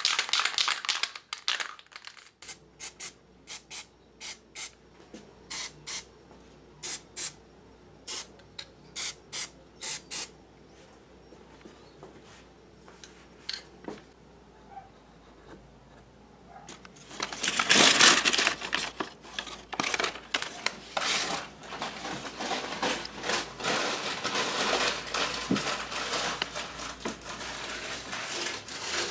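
Aerosol can of black spray paint hissing: a burst at the start, then a string of short puffs, then longer spraying through the second half, loudest about two-thirds of the way in.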